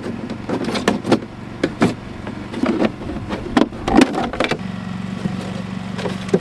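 Excavator engine running while digging a rocky hole, with a string of sharp knocks and clanks over the first four seconds or so. After that the engine runs on steadily.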